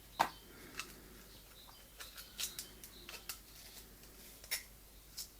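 Scattered light clicks and taps from a small box of staples and brad nails being handled, about a dozen irregular ticks with the loudest just after the start.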